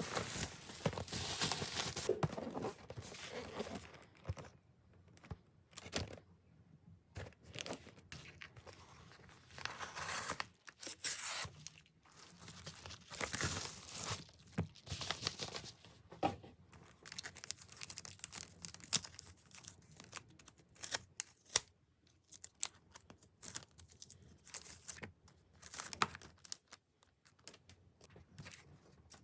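Packaging being torn open and crinkled by hand, irregular rustles with scattered small clicks and knocks.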